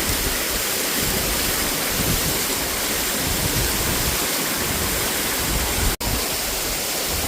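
Waterfall: a steady, even rush of falling water that cuts out for an instant about six seconds in.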